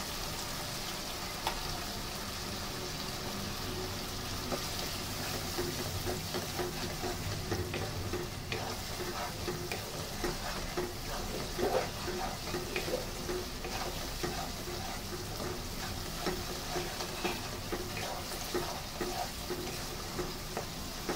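Spice paste frying in oil in a non-stick wok with a steady sizzle, while a wooden spatula stirs it, scraping and tapping against the pan now and then. The masala is being fried down until the oil separates.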